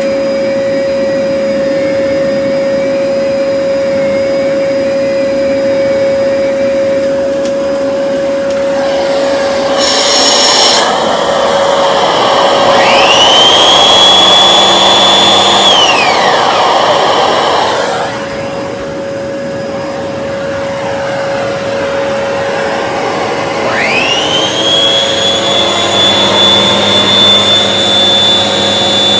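Vacuum cleaner running with a steady motor hum. Partway through, the power nozzle's brush motor spins up with a rising whine, holds, then winds down. Near the end it spins up again and keeps running.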